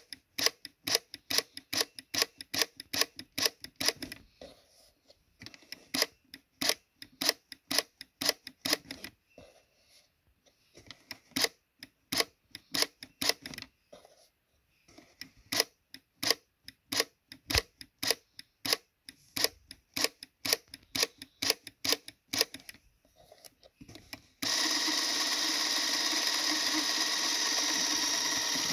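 Runs of sharp, evenly spaced mechanical clicks from the Braun Nizo 801 macro Super 8 camera, about three a second. About 24 seconds in, the camera's film-drive motor starts and runs steadily.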